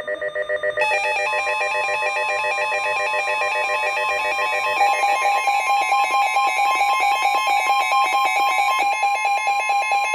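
NOAA Weather Radio warning alarm: a steady high tone near 1 kHz, the 1050 Hz attention signal that announces an emergency warning, layered with loud pulsing electronic alert beeps. The tone stops at the very end, just before the warning message is read.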